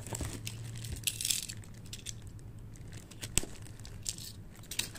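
Clear plastic bag crinkling and crackling as it is pulled off a cardboard toy box, in uneven bursts with one sharper crackle a little past the middle. A steady low hum runs underneath.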